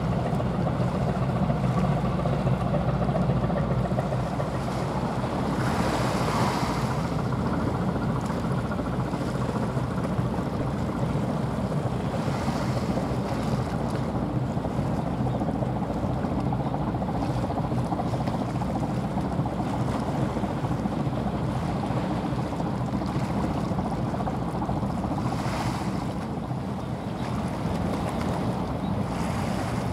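A small coastal cargo ship passing under way: a steady low drone together with the rushing water of its bow wave. Brief swells of hiss come three times.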